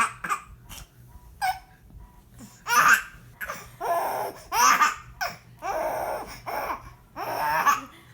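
Hearty laughter in a string of loud, pitched bursts, starting about three seconds in, after a few faint sounds.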